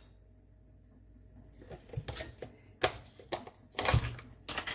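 A handful of short, sharp knocks and clicks of kitchen things being handled, after a quiet first second or so.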